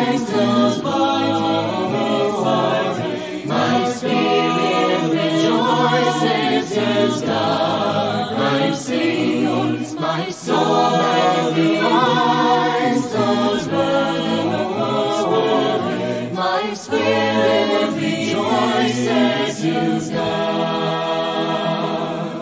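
A choir singing a slow chant, the voices held in long notes with a wavering vibrato; the singing stops at the very end.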